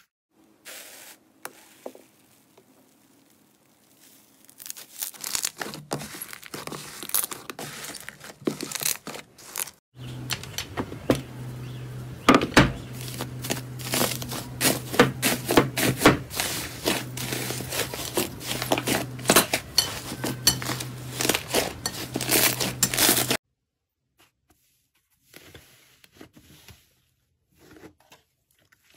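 Hands squeezing and stretching slime, with scattered soft crackles. From about ten seconds in, fingers press a slime mound covered in silver foil, and the foil crinkles densely over a steady low hum. This stops abruptly a few seconds before the end, leaving faint squishes of slime.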